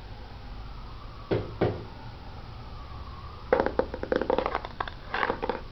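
A faint wavering whine, then two soft knocks about a second and a half in, followed by a run of clicks and rustles near the end, like something being handled.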